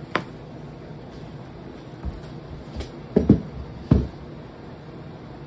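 Handling noise as e-bike parts are unpacked and moved: a sharp click just after the start, then a few dull knocks and thumps, the loudest about three seconds in.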